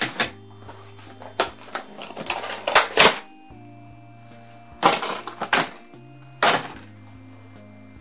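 Quiet instrumental background music with several bursts of clattering and rustling as plastic suction cups and their packaging are handled, the loudest about three seconds in.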